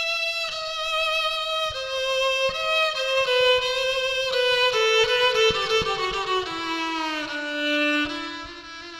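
Background music: a solo violin playing a slow melody of held notes that step gradually downward in pitch.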